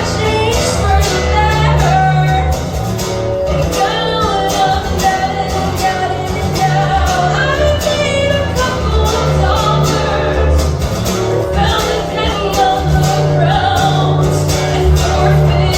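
Live performance of an original pop song: a lead singer's melody over instrumental accompaniment with sustained low notes and a steady beat.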